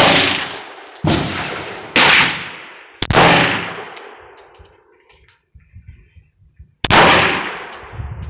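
Glock 17 Gen 4 9 mm pistol fired five times with 124-grain full-metal-jacket rounds: four shots about a second apart, a pause of nearly four seconds, then a fifth. Each shot is followed by a long fading ring.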